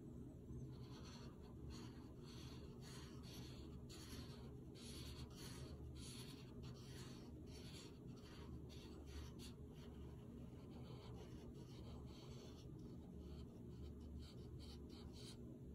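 Faint scratching of a broad-tip marker on paper, moving back and forth in quick, irregular strokes to fill in colour.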